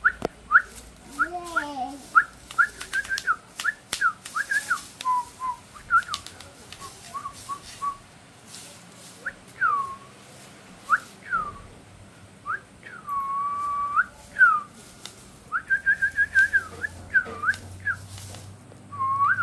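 A run of short, high whistled chirps, many of them dropping in pitch, with one longer held note about two-thirds of the way through. Light crinkly rustles of foil tinsel come in between as the kitten bats at a tinsel pompom.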